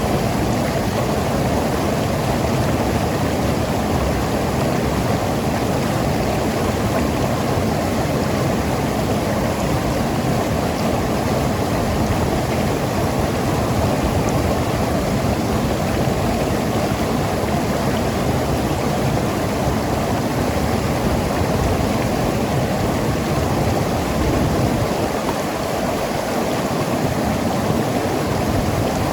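Mountain river rushing and gurgling over rocks, a steady full rush of water with most of its weight in the low and middle range.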